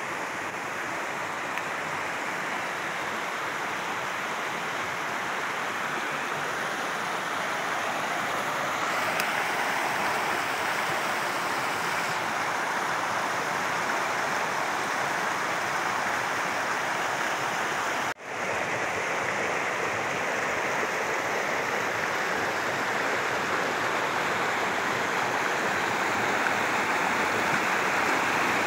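Muddy floodwater rushing along a rain-swollen creek, a steady, dense rush of water that grows slowly louder. It drops out for an instant about two-thirds of the way through, then the rushing resumes.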